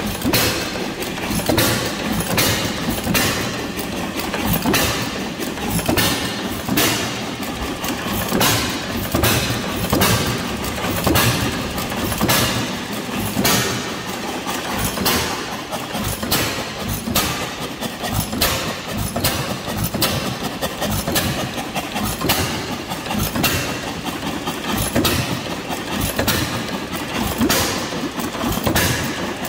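Antique hit-and-miss engine running, its flywheels turning, with a steady run of sharp firing beats. It runs on a makeshift trip-and-points ignition that sparks on every trip, and by the owner's account it runs, but not well.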